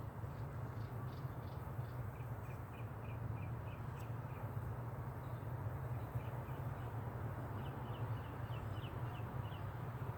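Faint bird chirping in two quick runs of short high notes, about five a second, over a steady low hum.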